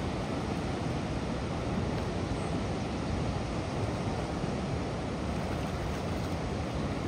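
Swollen floodwater pouring over a weir and churning below it: a steady, even rush of water.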